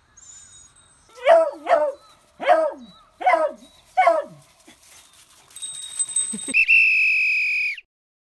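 Beagle puppy giving five short, high yelping barks, each dropping in pitch, over about three seconds. Then a steady hiss and a held high tone that lasts about a second and cuts off suddenly.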